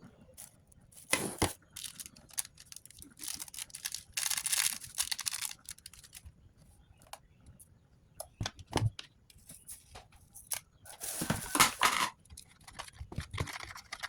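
Kitchen handling noises: scattered sharp knocks and clicks, with longer rasping stretches about four seconds in and again about eleven seconds in.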